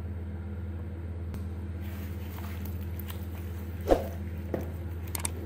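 A hand squishing raw chicken pieces through a yogurt-and-spice marinade in a bowl, with a sharp knock about four seconds in and a smaller click just after, over a steady low hum.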